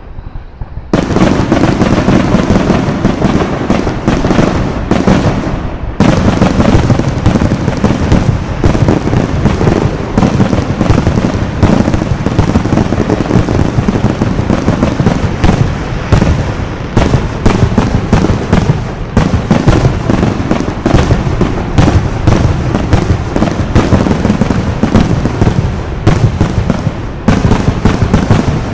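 Fireworks display in a dense, continuous barrage of rapid bangs and crackling that starts abruptly about a second in and keeps going without a break.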